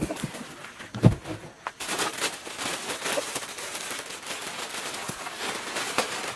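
Cardboard box being lifted away with a knock about a second in, then a large clear plastic bag crinkling and rustling steadily as it is pulled off the compressor.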